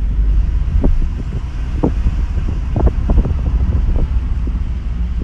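Steady low rumble of a moving car heard inside the cabin from the back seat, with a few faint knocks between about one and four seconds in.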